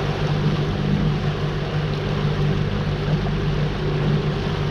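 Boat's outboard motor running steadily with the boat under way, a constant low hum over the rush of wind and water.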